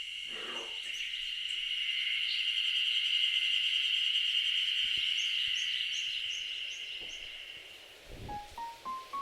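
Spring cicadas (harusemi) droning in chorus, one steady high buzz that swells and then fades away. A bird gives a quick run of short chirps midway. A few rising notes of music come in near the end.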